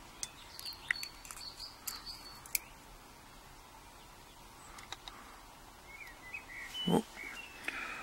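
Faint small clicks and taps of steel tweezers on the lock's pins, springs and core as they are picked out, with a sharper knock about seven seconds in. Faint bird chirps sound in the background.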